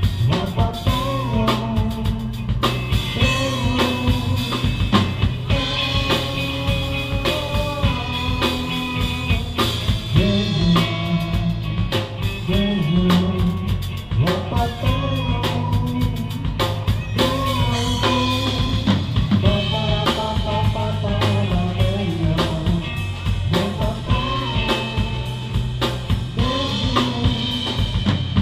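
Live band playing an instrumental passage: drum kit keeping a steady groove under electric bass and electric guitar, with a melody line moving over the top.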